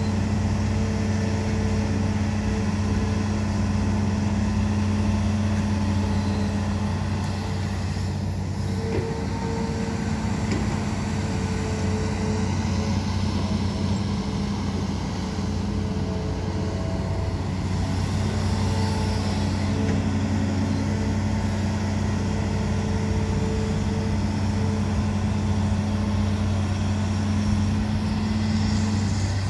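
Hitachi Zaxis 210LCH excavator's Isuzu diesel engine running steadily under load as it digs and swings, a constant low drone that eases briefly about eight seconds in.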